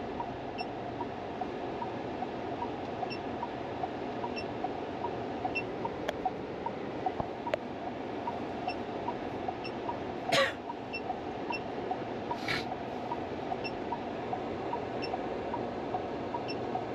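Steady cabin hum inside a SsangYong Torres with its climate-control fan running, under a soft ticking about twice a second. Two short, sharp chirps come about two seconds apart, a little past the middle.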